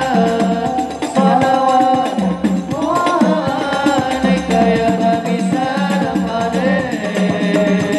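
Background music: a wavering sung melody over hand percussion, steady throughout.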